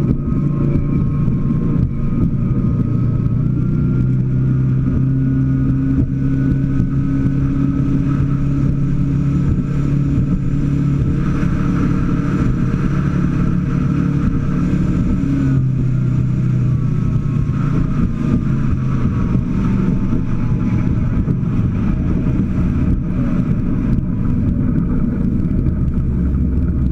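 Scarab speedboat's engine running steadily under way, over a low rush of wind and water. Its pitch drops a little just past halfway.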